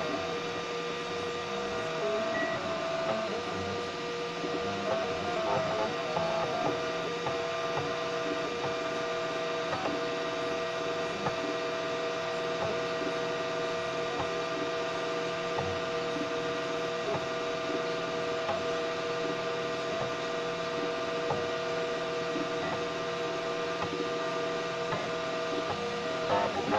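Homemade 3D printer's stepper motors running as the nozzle lays down PLA, a steady whine of several tones with faint regular ticks. The pitches shift during the first few seconds, then hold steady.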